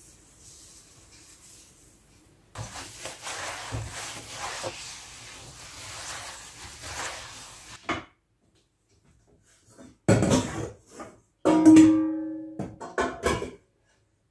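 A cloth rubbing over a glass-ceramic cooktop for several seconds. Then a stainless steel bowl clatters as it is handled at a cabinet: a few sharp knocks, and one clear metallic ring that fades over about a second.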